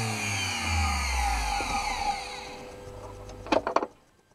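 Rewound GMD82-05-1B permanent-magnet DC treadmill motor spinning down, its whine falling steadily in pitch and fading over about three seconds. A few sharp clicks near the end.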